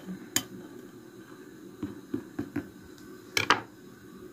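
A few light clicks and taps of a china bowl being handled, with a sharper double clink about three and a half seconds in.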